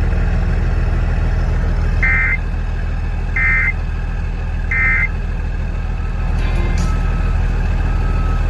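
Three short, identical data-tone bursts about a second apart: the end-of-message code of an Emergency Alert System severe thunderstorm warning broadcast, closing the alert. A truck's diesel engine idles steadily underneath.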